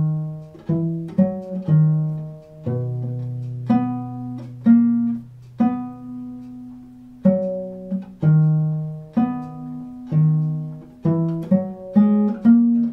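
Bass viol (viola da gamba) bowed through a slow exercise of single notes in chordal fingering, each note starting sharply and then fading. Fingers are held down, so a lower note rings on under the next ones.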